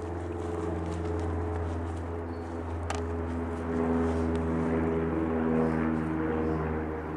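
Steady engine drone, a low hum with pitched overtones that slowly shift up and down, with one sharp click about three seconds in.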